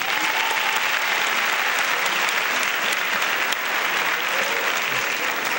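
A large audience applauding, a dense, steady clapping that holds at full strength throughout.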